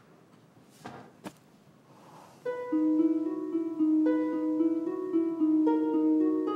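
Light background music on plucked strings, picking out a gentle melody, comes in about two and a half seconds in. It follows a quiet stretch with a soft brief sound and a small click.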